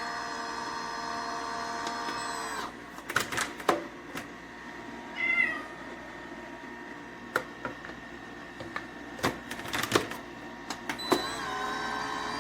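Ice cream maker running with a steady hum that stops about two and a half seconds in, followed by scattered clicks and knocks. A single short cat meow comes near the middle, and the machine's hum starts again near the end.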